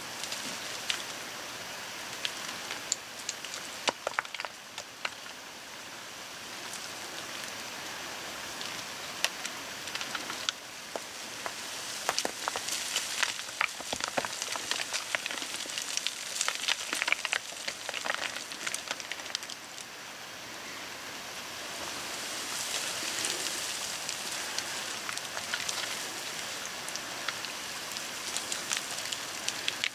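Loose shale scree sliding and clattering under boots and trekking poles on a steep descent: a steady hiss of shifting stones with many sharp clinks of stone on stone.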